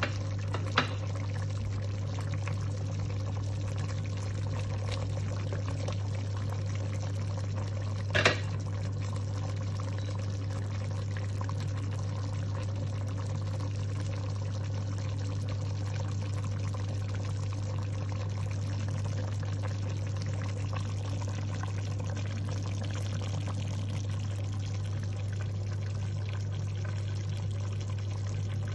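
Chicken pieces simmering in broth in a metal pot on the hob: a steady watery hiss over a low hum, with two short knocks, one about a second in and one about eight seconds in.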